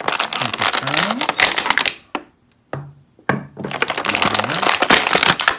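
Thin clear plastic packaging bag crinkling and crackling as an action figure is worked out of it by hand, in two spells with a brief pause about two seconds in.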